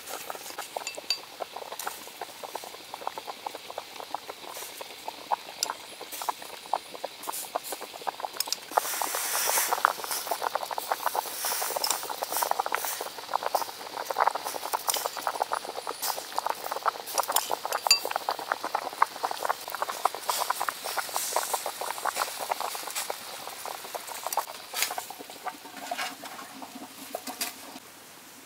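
Fish steaming on a plate inside a large metal pot: water bubbling and crackling, denser and louder from about nine seconds in, with occasional clinks of metal.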